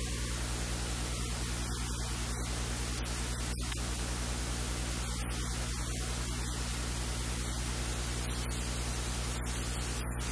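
Steady hiss with a low electrical hum underneath, unchanging throughout; no kitchen sounds stand out above it.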